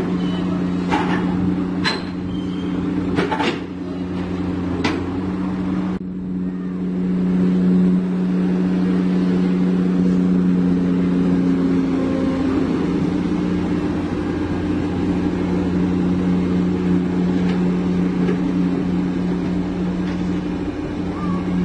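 Komatsu PC200-8 excavator's diesel engine running steadily while the machine tracks along a truck's deck, with a few sharp knocks in the first five seconds.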